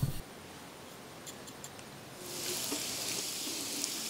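Hot oil sizzling around a puffed sanjeera (sweet stuffed poori) deep-frying in a small iron kadai. The steady hiss starts about halfway in, after a quiet first half.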